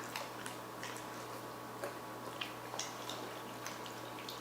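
A dog licking and eating soft pumpkin-yogurt batter: a run of small, irregular wet clicks.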